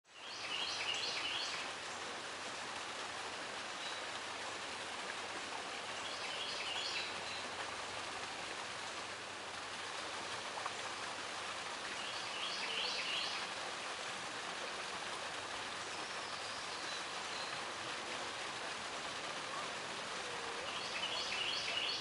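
Small waterfall splashing steadily into a pool. A bird sings the same short phrase of quick high notes four times, about every five to eight seconds.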